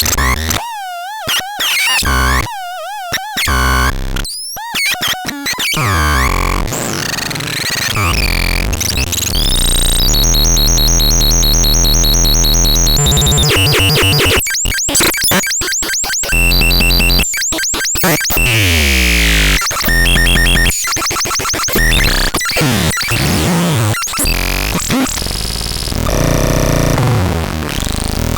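Electronic noise synthesizer making harsh, glitchy sounds: warbling pitch sweeps in the first few seconds, then buzzy, rapidly modulated tones and noise that cut off and switch abruptly many times.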